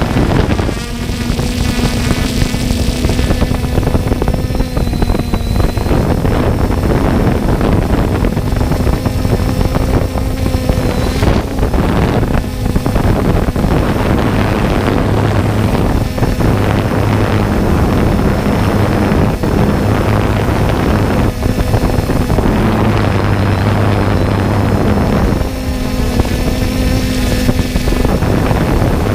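Drone propellers humming steadily, the pitch stepping up and down now and then, with wind buffeting the microphone.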